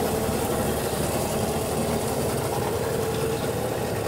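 Sea-Doo jet ski engine idling steadily on its trailer during a freshwater flush from a garden hose.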